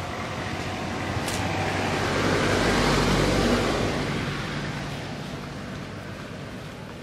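A road vehicle passing by: a broad rushing noise that swells to its loudest about three seconds in and then fades away. A brief sharp click sounds just after a second in.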